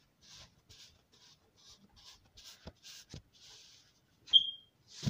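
Sand-textured cloud-slime putty squeezed and stretched by hand close to the microphone: a run of soft, short crackles with a few faint clicks, and one brief high squeak about four seconds in, the loudest sound.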